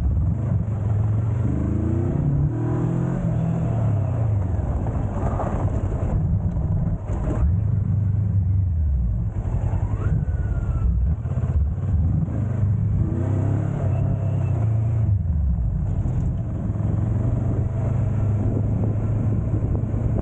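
Motorcycle engine running under way, its pitch rising and falling several times as the rider accelerates and eases off.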